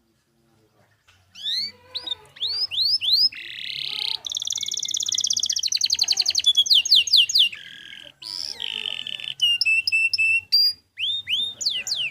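Canary singing a long, varied song of fast trills and rapid runs of repeated downward-sweeping whistled notes, with buzzy rolls between them. It starts about a second in.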